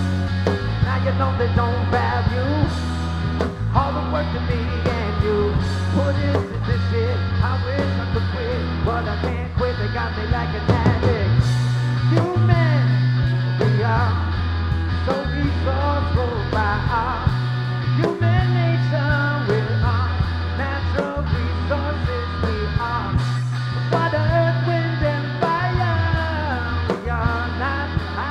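Live rock band playing: electric guitars over a pulsing bass line and a drum kit, with a bending lead melody on top.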